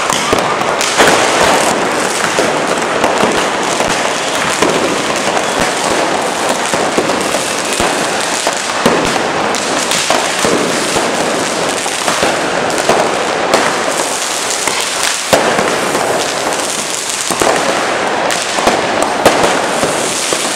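Firecrackers and fountain fireworks going off together in a dense, continuous crackle, with louder sharp bangs scattered throughout.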